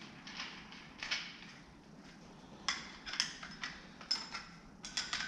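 Sharp metal clinks and clatter of tools and parts being handled, a couple early on and then a quick run of them over the second half.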